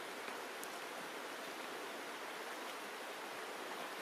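Shallow rocky stream running over stones: a steady, even rush of water.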